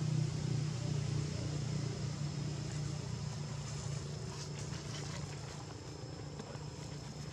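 A low engine drone, loudest near the start and slowly fading, with a steady high thin whine above it and a few faint clicks about four to five seconds in.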